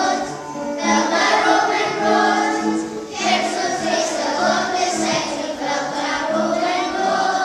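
A class of primary-school children singing a song together, in sung phrases with short breaks about one second in and again about three seconds in.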